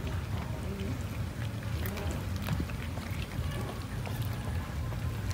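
Several cats chewing and smacking on cooked rice: many small, irregular clicks over a steady low rumble.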